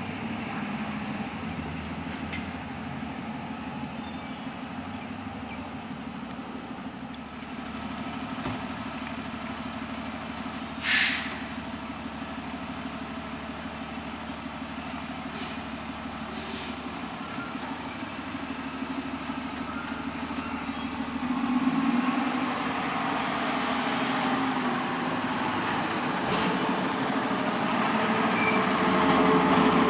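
Pierce fire engine's diesel engine running at a stop, with a short sharp air-brake hiss about a third of the way in, then growing louder as the truck pulls away and drives past.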